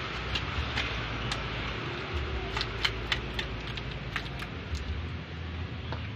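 Thin plastic drink bags crinkling and clicking in the hands as they are twisted shut, tied with rubber bands and set down on a wooden table. There are a dozen or so short sharp clicks, clustered in the middle, over a steady low background rumble.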